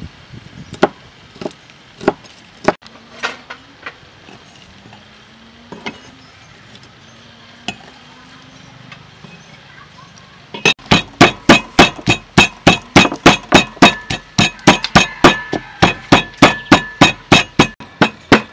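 Chilies being pounded with a pestle in a mortar: a few scattered strikes, then from a little past the middle a steady run of hard, ringing blows about three a second.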